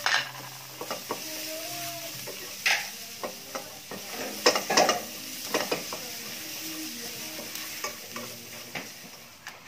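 Minced garlic sizzling as it sautés in a stainless steel frying pan, stirred with a utensil that scrapes against the pan several times, most often around the middle.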